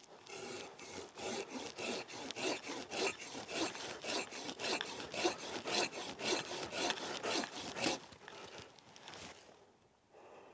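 Silky Big Boy 2000 Outback Edition folding pruning saw cutting through a fallen willow log in quick, even back-and-forth rasping strokes. The strokes stop at about eight seconds, followed by a few fainter strokes as the cut finishes.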